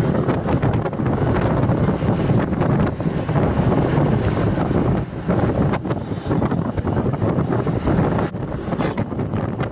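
Wind buffeting the microphone of a camera phone held at the window of a moving vehicle, a steady loud rush with road and engine noise underneath.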